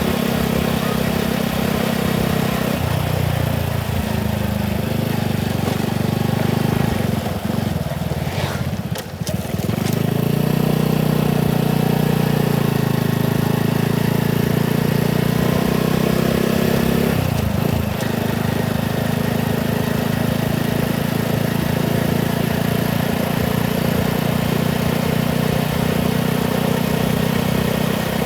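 Motorcycle engine running steadily while riding, with road and wind noise. The engine note drops briefly about nine seconds in, then picks back up.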